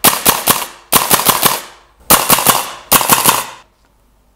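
VFC KAC SR-25 gas blowback airsoft rifle firing in four quick strings of about four shots each, every shot a sharp crack with the bolt cycling. The firing stops a little over three and a half seconds in. Really loud.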